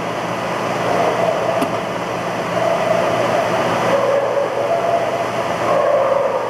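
Cold saw cut-off machine running, its circular saw blade cutting steel tube clamped in the vise: a steady mechanical hum with a wavering whine that grows louder, and one brief click about a second and a half in.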